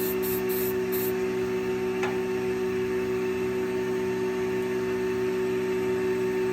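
Steady hum with several held tones from running shop machinery. In the first second, four short hisses of an aerosol spray on the collet parts.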